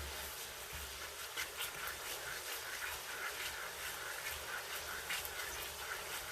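Thickened soy-and-vinegar adobo sauce bubbling and sizzling in a pot on high heat, with a steady stream of small crackling pops.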